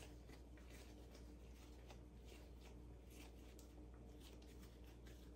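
Near silence: faint soft rustles and pats of hands shaping a ball of pizza dough on a floured silicone mat, over a low steady hum.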